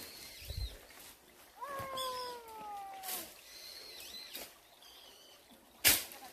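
A domestic cat meows once, a single long call of about a second and a half that starts a little over a second in and drifts slightly down in pitch. Near the end there is a sharp knock.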